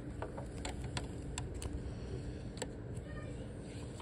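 Scattered light plastic clicks and taps as Lego pieces are handled: a Lego Friends mini-doll being lifted out of the kitchen set and stood back on its studs.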